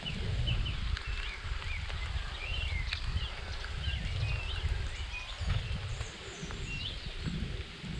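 Small birds chirping, many short calls one after another, over an uneven low rumble of wind on the microphone.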